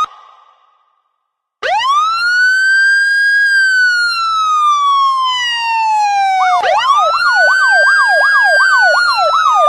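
Electronic siren: after a short quiet start, a wail rises and then slowly falls, then rises again with a fast yelp warble of about three sweeps a second laid over it.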